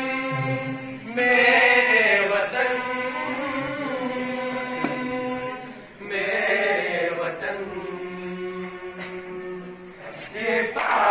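Students singing a milli naghma (patriotic national song) together, in long drawn-out phrases that bend in pitch, with a fresh phrase starting about a second in and another around the middle.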